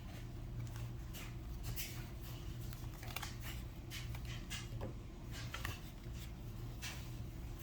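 Lorcana trading cards being handled and flipped through, a scatter of light rustles and clicks, over a steady low hum.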